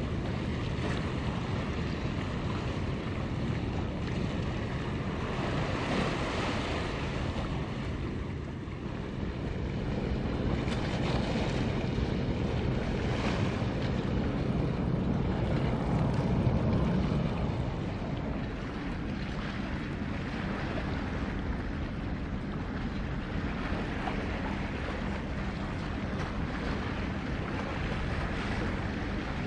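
Wind buffeting the microphone over water lapping, with a low steady drone from ship engines underneath; the wind swells louder for several seconds in the middle.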